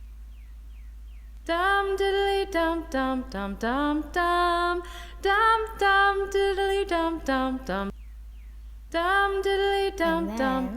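A short clip of a song playing back on a loop: a woman's voice singing a melody in held notes, unaccompanied. The phrase stops, and after a short pause it starts over about nine seconds in.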